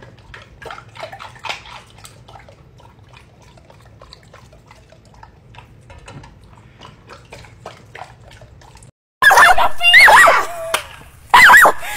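A golden retriever lapping water from a steel bowl: faint, quick, irregular laps and drips. About nine seconds in, this cuts abruptly to loud, high, wavering cries.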